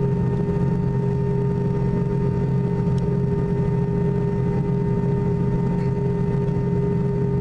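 Airliner cabin noise while taxiing: the jet engines' steady hum, with several unchanging tones over a low rumble.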